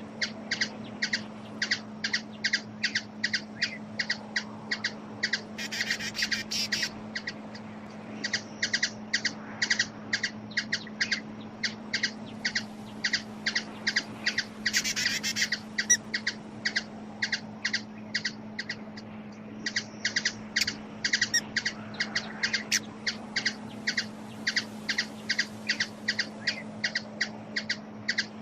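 Hummingbird giving a long series of short, sharp chip notes, about three or four a second, broken by two brief buzzy chattering bursts and a couple of short pauses, over a steady low hum.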